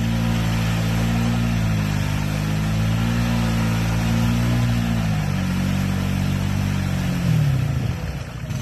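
Honda ATV engine revving in slow swells, under load while the quad is stuck in a muddy water hole. The revs fall away about seven and a half seconds in.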